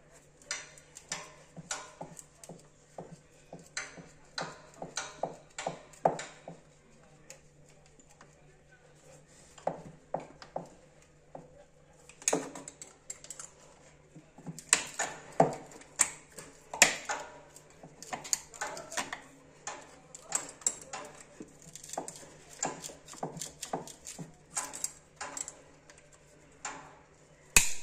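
Irregular clicks, taps and rustles of hands gripping and twisting a CPVC pipe and its fitting, sparse at first with a short lull, then busier from about halfway. A faint steady hum runs underneath.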